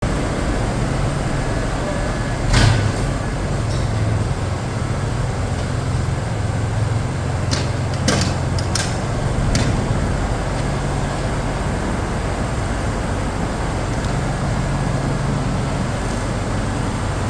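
Engine of a cable-pulling machine running steadily with a low hum, broken by a few sharp metallic clicks and knocks, the loudest about two and a half seconds in.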